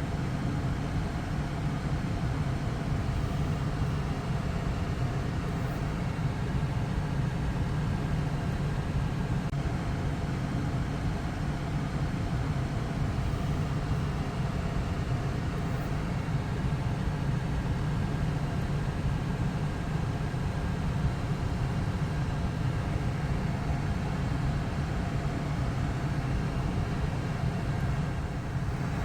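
Car engine idling: a steady low hum that does not change.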